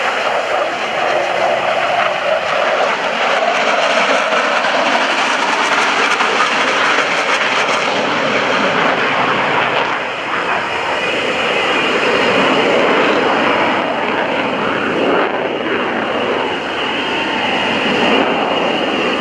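A Blue Angels F/A-18 Hornet's twin jet engines, loud and steady as the jet flies by and climbs away, dipping briefly about halfway through.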